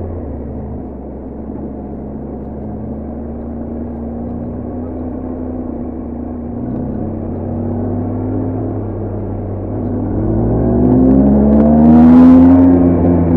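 BMW R1250GS Adventure's boxer-twin engine and exhaust under riding: steady running at first, then the revs climb over the last few seconds to the loudest point just before the end and ease off, with a short hiss at the peak.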